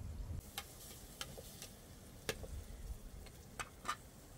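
Sparse light clicks and ticks, about six of them at irregular intervals, over a faint low rumble.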